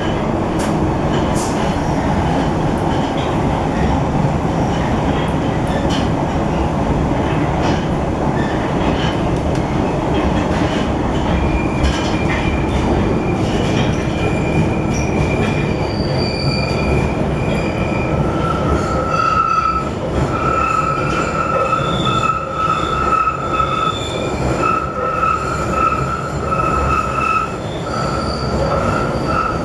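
London Underground Bakerloo line 1972 Tube Stock train running through a tunnel, heard from inside the carriage: loud, steady wheel and running noise with a few clicks. Thin squealing tones from the wheels come in about halfway through, and a strong steady high squeal holds from about two-thirds of the way in.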